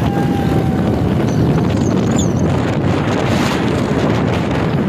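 Wind rushing steadily over the microphone on a moving motorcycle, with the bike's running and road noise underneath.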